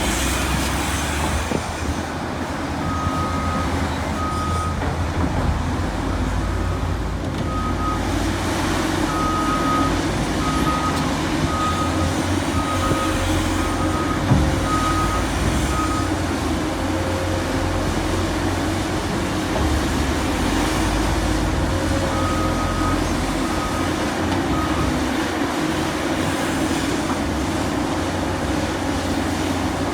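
Heavy diesel earthmoving machinery running steadily, with a vehicle's reversing alarm beeping at one pitch: about a dozen beeps over the first half and a few more later on. A single sharp clunk about halfway through.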